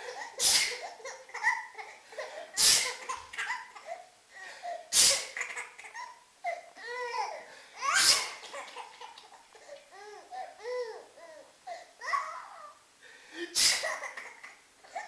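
Someone sneezes loudly about five times, and a young child breaks into bubbly laughter after each sneeze, the laughter rising and falling in pitch between them.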